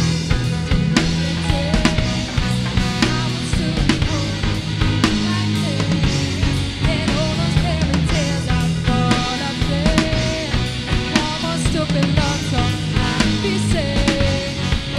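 Live band playing a pop song: a drum kit keeps a steady beat under a woman's lead vocal, which holds several long, wavering notes.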